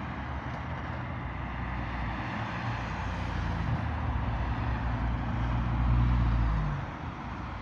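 Road traffic on a multi-lane city street: steady tyre and engine noise of cars passing below, with a low rumble that swells about six seconds in as a vehicle passes close, then eases off.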